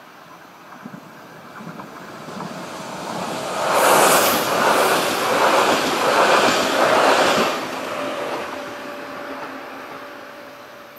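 A passenger train passing the level crossing at speed. It grows louder as it nears, then runs loudest for about four seconds with a clatter of wheels on the rails that surges four or five times, and fades away after it has passed.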